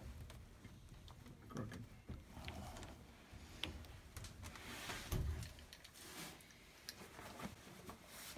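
Faint handling noises as a plastic shower valve cartridge is worked loose and pulled out of its brass valve body: small clicks and scrapes, with clothing rubbing close to the microphone. A low thump comes about five seconds in.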